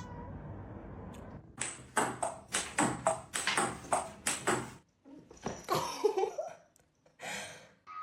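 A quick run of about eight sharp knocks, each with a faint high ringing, over about three seconds, followed by a shorter wavering sound.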